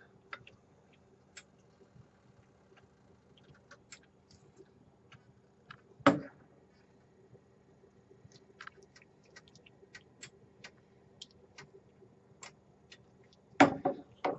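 Metal ladle clinking and tapping against a cooking pot and plate while dishing up a thick sauce: scattered light clicks, with louder knocks about six seconds in and near the end. A faint steady hum runs underneath.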